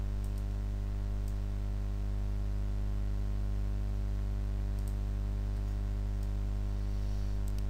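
Steady electrical mains hum with a ladder of buzzing overtones, picked up by the recording microphone, with a few faint computer mouse clicks.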